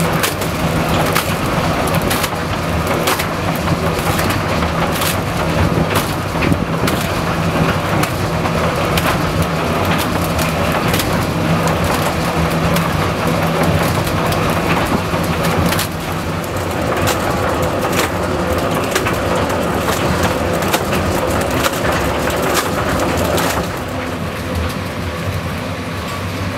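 Tractor engine running steadily under the continuous clatter and knocking of a Loewen Honey-Loader's elevator as it lifts scraped dairy manure and drops it into the hopper. The sound eases a little near the end.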